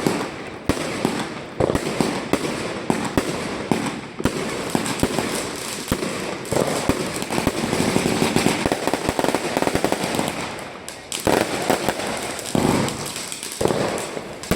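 Salon Roger 'The Next Level' firework cake, a 212-shot cake of 22.5 and 30 mm tubes, firing a rapid, continuous run of shots that burst overhead with crackle. The bangs come in quick succession, with a louder cluster about two thirds of the way through.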